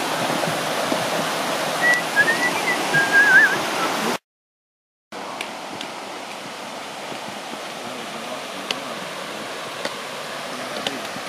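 Water pouring over a concrete dam spillway and splashing down rock ledges, a steady loud rush, with a short warbling whistle about two seconds in. After a brief dropout the sound goes on as a quieter steady rush with a few faint clicks.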